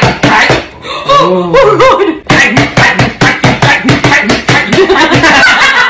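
Rapid, rhythmic hand slaps on a clear plastic food container covering an egg on a countertop, about five a second. Laughter and a high shriek come in around a second in.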